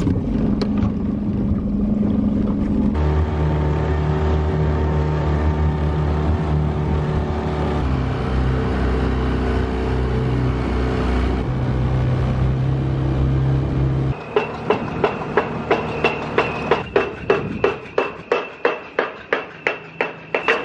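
Small Suzuki outboard motor on an inflatable dinghy running steadily under way. About fourteen seconds in, dock pilings being hammered in take over: regular heavy blows, about three a second, over a high ringing tone.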